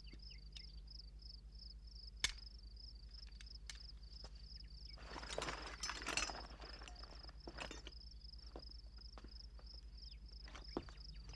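Crickets chirping in a steady, fast pulsing rhythm, with a sharp click about two seconds in and a brief clatter of knocks and rustling around five to six seconds in.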